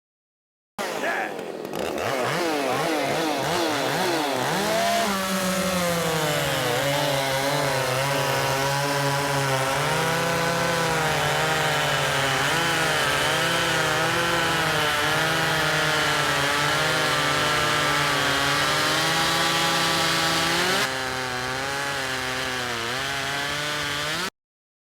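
Ported Makita 5600 two-stroke chainsaw run at full throttle in wood. It starts abruptly about a second in and is revved up and down for a few seconds. It then holds a steady, slightly wavering pitch under load in the cut, drops a little in level and pitch near the end, and stops abruptly.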